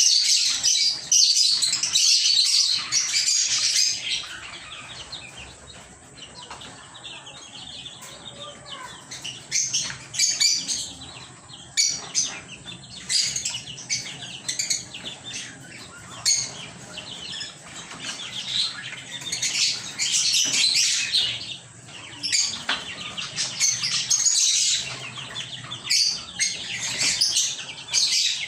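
Pet lovebirds chirping in a dense, rapid high-pitched chatter, loudest for the first few seconds and then coming in repeated bursts.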